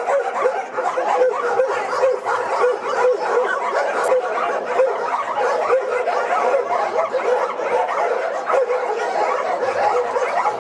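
A crowd of shelter dogs barking and yelping at once, the barks overlapping densely with no pause.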